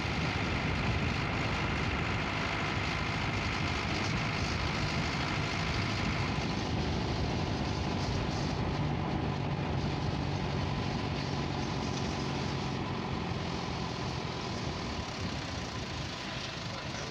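Steady engine and road noise of a vehicle driving along a paved road. A faint high whine sits over it for the first few seconds.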